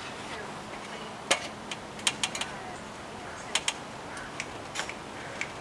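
Irregular sharp clicks and light taps of hands working a storm window and its fittings free at an upper window, about a dozen over a few seconds, the loudest about a second in.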